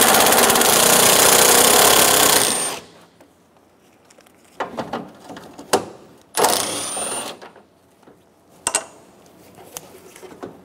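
Cordless impact tool rattling as it backs out two 10 mm bolts: one run of about three seconds, then a short burst about six and a half seconds in. Small knocks and clicks of parts being handled in between and near the end.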